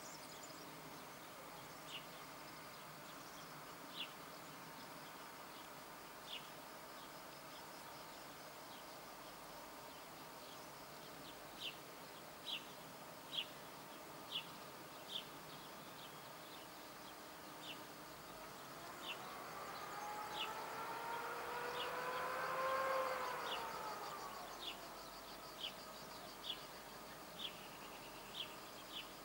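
Quiet outdoor ambience: short high chirps every second or two, a faint steady insect buzz, and, from about two-thirds of the way in, a distant motor-like tone that swells and rises in pitch, then falls and fades.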